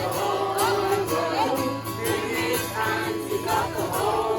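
Music: a group of people singing together with instruments accompanying them, notes held and wavering throughout.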